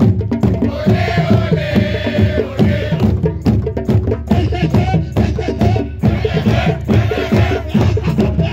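Many djembe hand drums played together in a fast, steady group rhythm, with open tones and slaps overlapping. Voices chant along over the drumming about a second in and again near the end.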